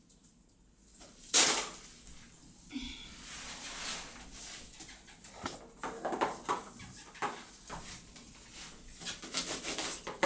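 Crinkly plastic bag rustling and crackling in irregular bursts, with a loud rustle about a second and a half in and more clusters of crackling later.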